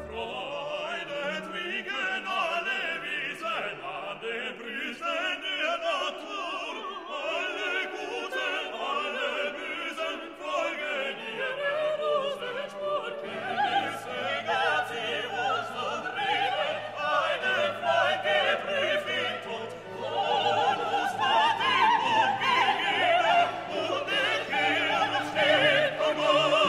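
Background music: classical operatic singing with orchestral accompaniment.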